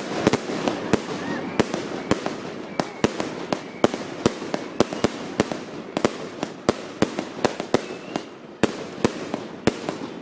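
Fireworks going off: a dense, irregular run of sharp pops and cracks, several a second, over a steady hissing rush.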